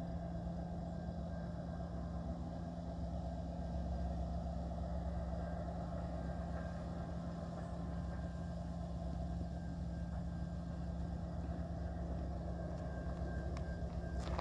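Diesel freight locomotive engines running steadily at a constant pitch, a low unchanging drone.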